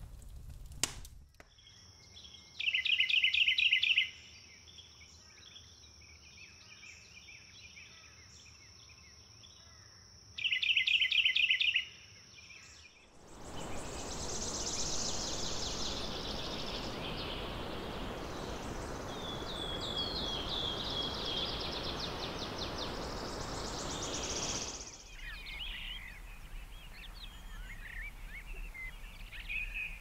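A sequence of nature recordings. It opens with a single crackle from glowing campfire embers, then a steady high whine broken by two loud trilled calls. From about thirteen seconds in comes roughly twelve seconds of a waterfall's rush, and it ends in scattered forest birdsong.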